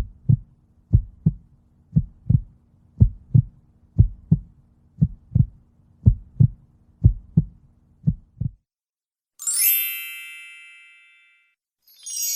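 Heartbeat sound effect: about eight low double thumps (lub-dub), roughly one a second, over a faint steady hum. It is followed by a single bright ding that rings out and fades, and a shimmering chime starts near the end.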